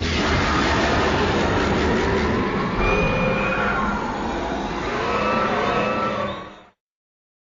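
A White Ghidorah monster sound effect: a dense, rumbling noise with wavering, gliding tones over it. It lasts about six and a half seconds, then fades out quickly.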